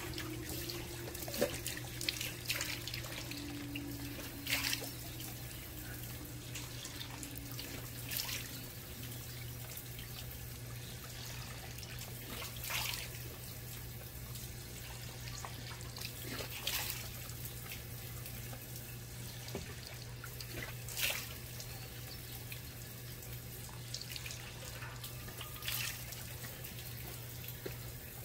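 Jindo dogs eating from bowls on a feeding stand: scattered sharp crunches and clinks every second or few, over a steady low hum.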